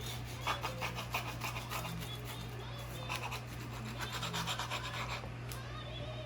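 Knife sawing through a crusty, pan-toasted grilled cheese sandwich on French bread, in three bunches of quick rasping strokes.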